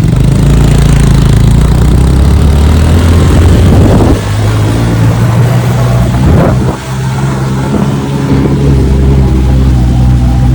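Motorbike engine running under way, heard from on the bike, with a steady rush over it; the engine note dips briefly twice, about four and seven seconds in.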